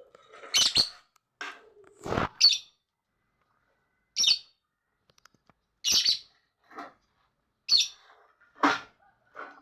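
Lovebird chattering: short, sharp, high-pitched chirps and squeaky calls, one or two at a time, about every second, with brief pauses between.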